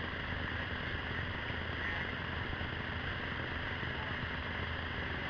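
Steady rushing of a whitewater creek: an even hiss that does not change.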